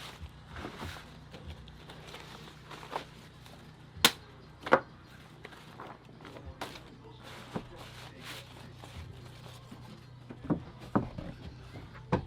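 A few sharp knocks, one about four seconds in followed by a second shortly after, and more near the end, over a low steady hum and faint voices.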